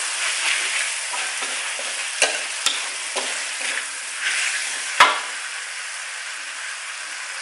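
Pork belly pieces sizzling in a steel wok in their palm-sugar and soy glaze while a metal spatula stirs and scrapes them, with a few sharp clanks of the spatula on the wok, the loudest about five seconds in. After that the sizzle goes on softer and steady.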